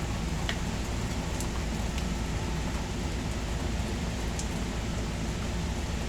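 Steady rain falling, with a few sharp ticks of drops landing close to the microphone.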